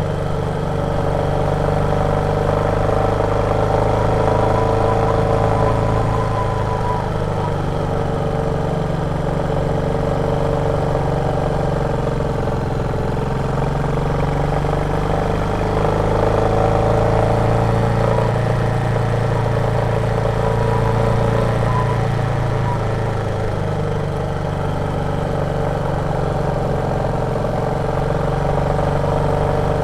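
Royal Enfield Meteor 350's 349 cc single-cylinder engine thumping while the motorcycle is ridden, its note rising and falling slowly with the throttle.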